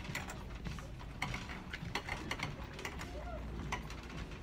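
Irregular light clicks and rustling from a handheld phone being carried while walking, over a low steady hum.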